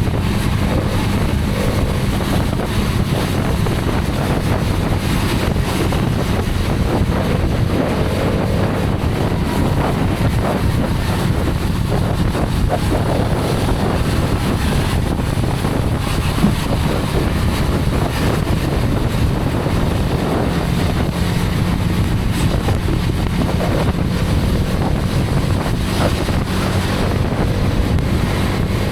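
Hero Karizma XMR's single-cylinder engine running steadily while riding, under heavy wind noise on the microphone.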